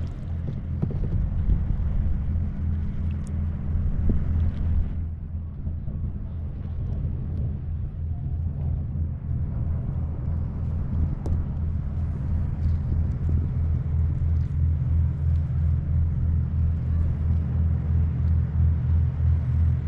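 A loud, steady low rumble that pulses evenly.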